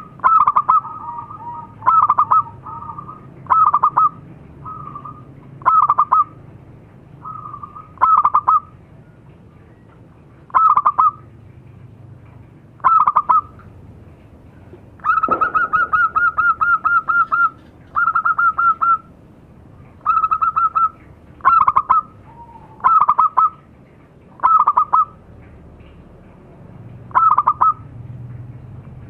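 Zebra dove (perkutut) calling: short bursts of rapid staccato coos about every two seconds, with fainter calls in between and one longer rolling call about halfway through.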